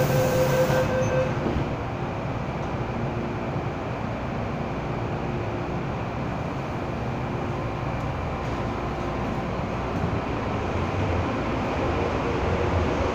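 Interior of an MTR M-Train car: a steady warning tone and a hiss stop about a second in as the doors close, then the train pulls away, its running rumble growing louder toward the end.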